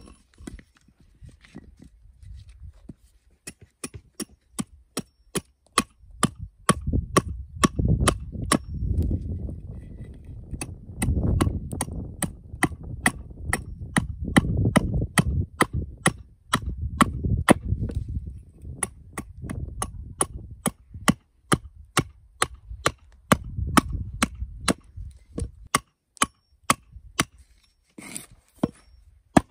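Stihl forestry hatchet splitting a small piece of wood into kindling on a log chopping block: sharp, regular knocks of the blade striking into the wood, about two a second. A low rumble runs underneath through the middle stretch.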